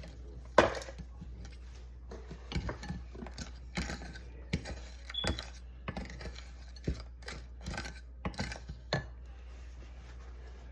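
Dry, hard baked-starch crunchies crackling: a string of sharp, irregular clicks and crunches that stop about nine seconds in.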